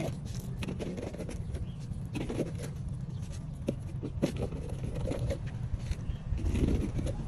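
Scattered scrapes and small clicks of grit and stones being handled in a dirt trench, over a steady low rumble.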